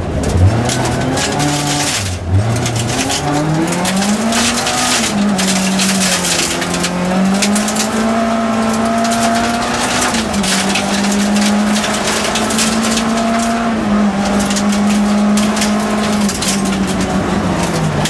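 Nissan Primera Group F rally car's engine, heard from inside the cockpit, accelerating hard on a gravel stage. Revs climb out of a slow corner over the first few seconds, then stay high with a few short dips, while gravel rattles and pings against the car.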